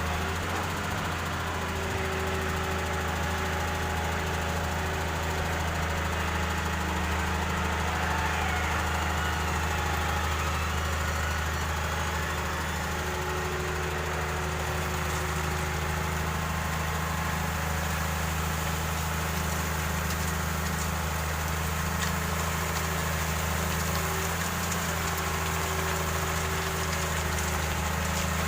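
Excavator engine running steadily at an even, low pitch, with no clear revving or change throughout.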